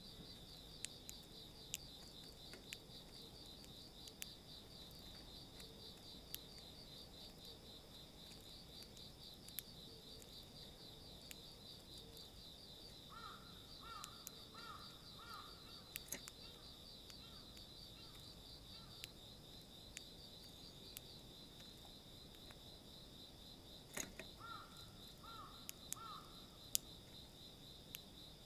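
Faint, steady, high-pitched trilling of insects, with scattered sharp clicks of Eurasian tree sparrows' beaks pecking seed in a plastic feeder tray. Twice, midway and near the end, a distant bird calls a short run of three or four quick notes.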